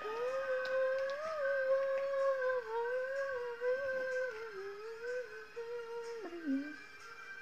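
A woman humming a slow tune in long held notes, dropping in pitch and stopping with a short downward slide near the end.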